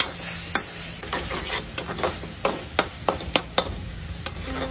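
A spatula scraping and clacking against a metal kadhai as chopped spinach and onion are stirred, in irregular strokes a few times a second, over a light sizzle of the greens sautéing. The spinach is being fried dry to drive off its water.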